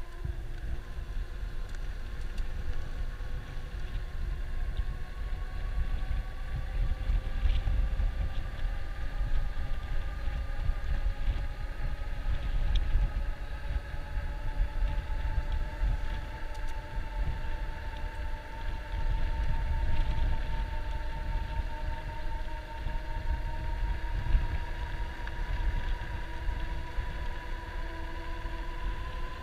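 Electric bike motor whining steadily as the bike rides along, its pitch drifting slowly up and down with speed, over a low rumble of wind on the microphone.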